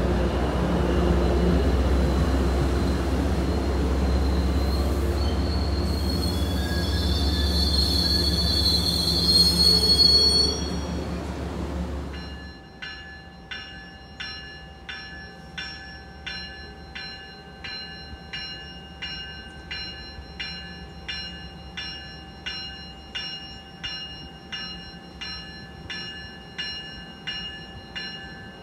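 MBTA bilevel commuter coaches rolling past close by, with a high wheel squeal that builds to its loudest about ten seconds in. After a cut, a bell rings steadily about three strikes every two seconds as a commuter train approaches the platform.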